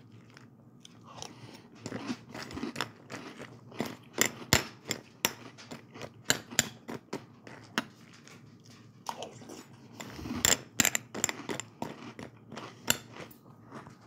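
Dry crunchy cereal being chewed: a run of irregular crunches, busiest about four seconds and about ten seconds in.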